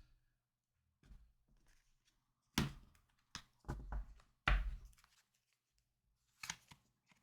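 Tarot cards being handled and laid down on a table: a few short taps and rustles with gaps between them.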